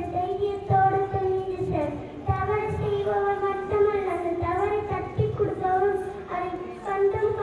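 A young girl singing solo into a handheld microphone, her voice amplified, holding long notes and gliding between them.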